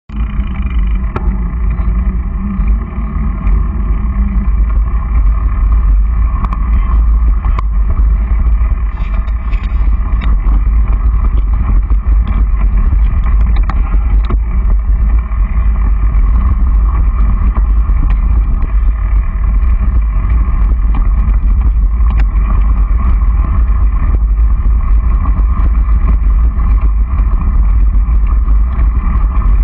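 Steady, loud low rumble of wind and jolting on the microphone of a camera moving along a dirt track behind a mountain bike, with a few faint clicks.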